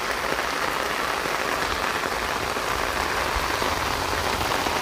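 Heavy rain pouring steadily onto flooded ground and standing water.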